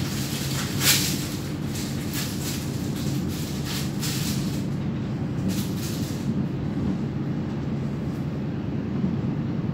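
NS VIRMm double-deck electric train running, heard from inside the carriage: a steady low rumble with a hum. Brief hissing swishes come through the first six seconds, the strongest about a second in, and then the sound evens out.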